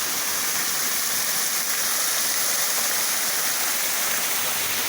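Steady rush of fast-flowing floodwater, an even unbroken roar of water.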